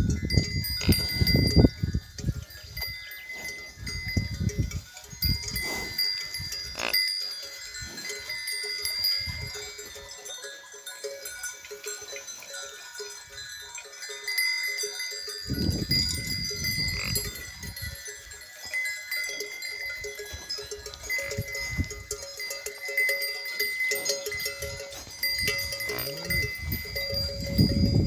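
Neck bells on grazing livestock ringing steadily, with occasional low rumbling bursts near the start, about halfway through and near the end.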